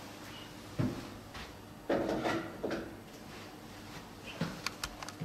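Knocks and rubbing from a plastic cryolipolysis treatment handle and its hose being carried and handled, loudest a couple of seconds in, then several quick sharp clicks near the end.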